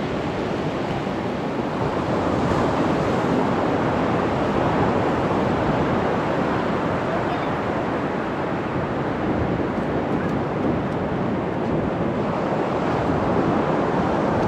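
Ocean surf washing onto the beach in a steady rush, gently swelling and easing, mixed with wind on the microphone.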